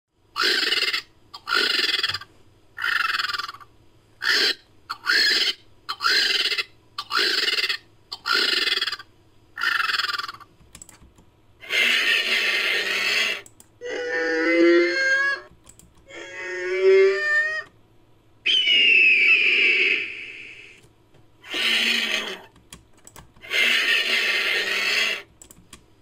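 Made-up Pterodactylus creature calls built from vulture sounds. About nine short, noisy calls come roughly one a second, then six longer screeching calls, two with a clear pitched shriek and one falling in pitch.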